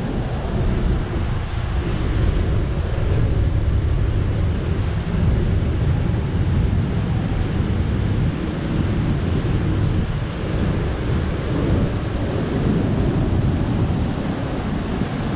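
Wind buffeting the microphone in a steady low rumble, with the wash of surf behind it.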